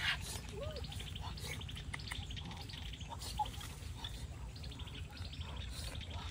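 Small birds chirping and trilling in short bursts over a steady low outdoor rumble.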